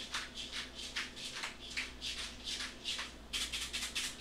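Pepper mill grinding: a run of quick rasping crunches, about three or four a second, speeding into a fast flurry near the end.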